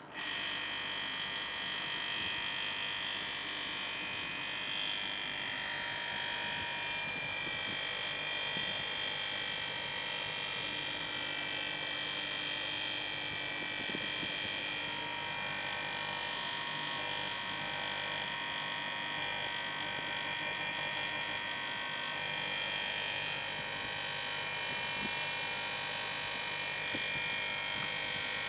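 Hermetic refrigeration compressor, started directly without its start relay, switching on abruptly and then running with a steady hum and whine.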